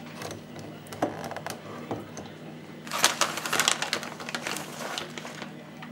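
Kitchen handling sounds while grated cheese is put on stuffed potatoes: a few light clicks and knocks, then about two and a half seconds of dense crackly rustling, like a plastic bag of grated cheese being crinkled, starting about three seconds in.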